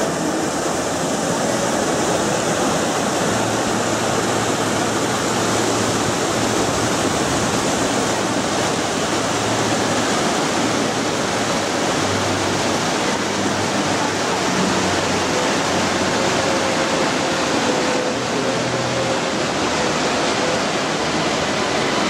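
Waterfall, water rushing steadily with an even, unbroken hiss.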